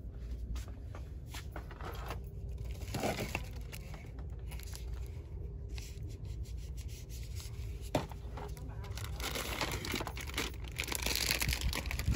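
Crinkling and rustling of handled plastic packaging or bags, with scattered light clicks over a steady low hum; the rustling grows louder near the end.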